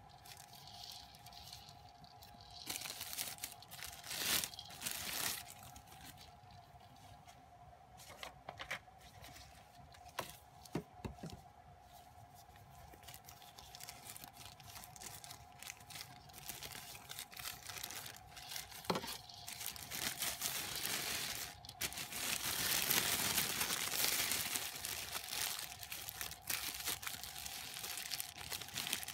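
Thin plastic bags crinkling and rustling as hands handle them, in irregular bursts, with a louder flurry about four seconds in and a longer stretch of crinkling about three-quarters of the way through.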